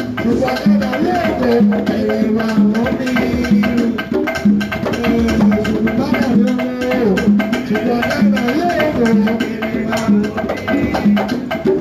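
Latin band music playing, instrumental, with a steady percussion beat.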